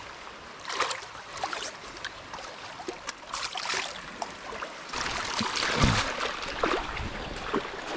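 Shallow seawater splashing and trickling as a hand swishes a mud mussel through it, with small scattered clicks; the splashing is heavier in the second half.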